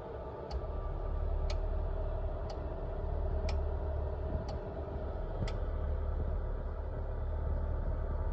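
Infrared space heater clicking sharply about once a second, six clicks, over a steady low hum. This is the repeated clicking that the owner takes for the switch turning the heating coils on and off under the thermostat.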